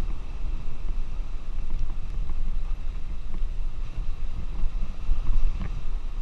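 A vehicle driving through a flooded dirt road: a steady low engine and road noise with water washing under the tyres, and wind buffeting the microphone. A short knock comes about five and a half seconds in.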